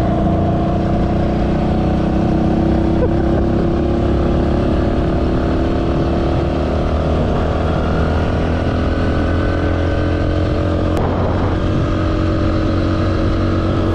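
Small motorcycle engine running at a steady cruise while riding, its pitch slowly sagging, with a brief change in pitch about eleven seconds in.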